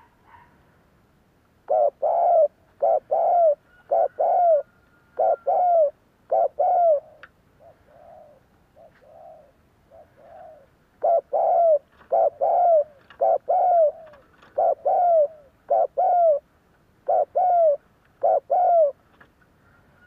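Spotted dove cooing: two bouts of loud, quick coos, each note dropping slightly in pitch, with a run of softer coos between them.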